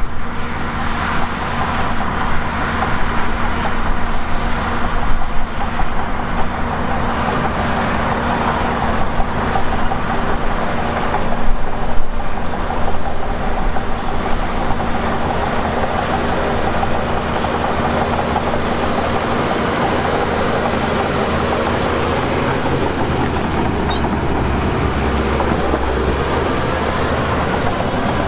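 Heavy earthmoving machinery's diesel engine running continuously with a steady low hum and a dense mechanical rumble. It gets briefly louder a few times, most of all about twelve seconds in.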